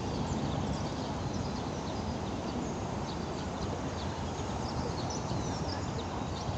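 Harbourside ambience: water lapping against the concrete seawall and pier under a road flyover, over a steady low traffic rumble, with small high ticks and chirps scattered through it.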